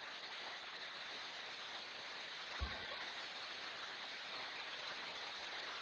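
Steady hiss of background noise on an open microphone, with one brief soft low bump a little past halfway.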